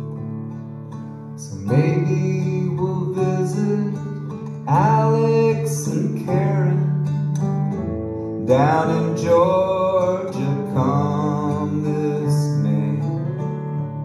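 Acoustic guitar, electric guitar and bowed cello playing an instrumental passage, with sustained low notes under it and sliding, swelling phrases that come in three times.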